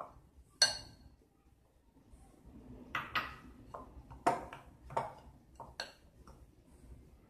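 A metal spoon and glassware clinking while flour and raisins are stirred in a glass mixing bowl: one sharp ringing glass clink about half a second in, then several lighter clinks and scrapes.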